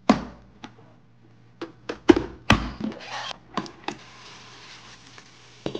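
Kitchen clatter: a sharp thunk, then a quick series of knocks and clicks of cookware and utensils. From about four seconds in, a faint steady sizzle sets in.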